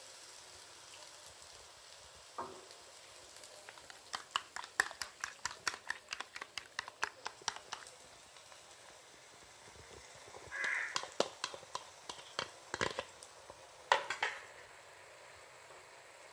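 Slotted spatula scraping and tapping against a wok while stir-frying shredded cabbage and vegetables, a quick run of clicks about three a second. Beaten egg poured into the hot wok gives a short sizzle, followed by a few more knocks of the spatula.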